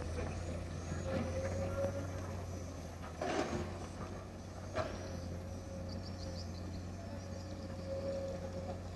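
Excavator's diesel engine running steadily under a wavering whine, with two sharp knocks about three and five seconds in.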